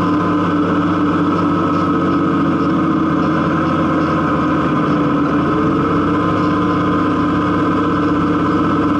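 John Deere 3650 tractor's six-cylinder diesel running steadily under heavy load while pulling a disc harrow through clay soil. The engine note sags briefly about halfway through, then holds.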